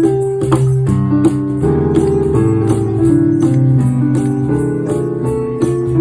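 Live band music: an electronic keyboard plays held chords and a melody while hand percussion keeps a steady beat.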